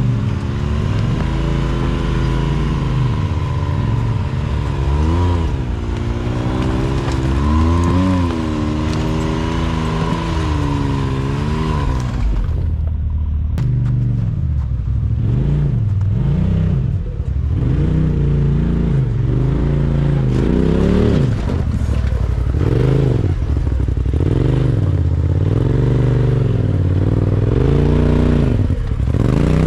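Can-Am Maverick X3 side-by-side's engine revving up and down again and again under throttle as it crawls over rough, icy ground.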